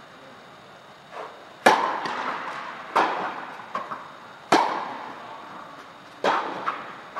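Tennis rally on an indoor court: four sharp racket strikes on the ball, about a second and a half apart, with softer knocks between them, each strike ringing briefly in the hall.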